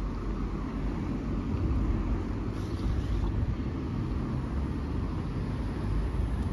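A steady, low rumbling outdoor noise.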